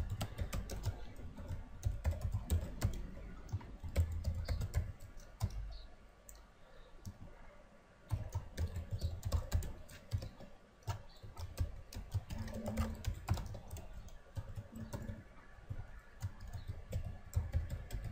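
Computer keyboard typing in quick runs of keystrokes, with a lull of a couple of seconds about a third of the way in.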